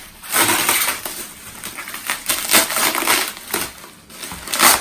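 Packaging being handled and unwrapped: irregular crunching and crackling, with a louder crackle near the end.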